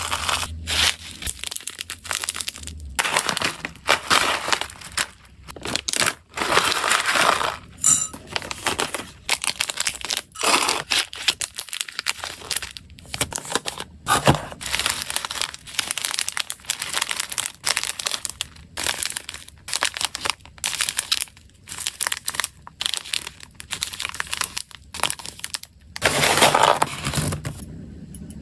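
Close-up packing sounds: dried hamster food rattling out of a glass cup into a plastic bag, crinkling plastic, and small cardboard boxes being handled and set down in a gift box. The sounds come as a string of short handling noises with brief pauses between them.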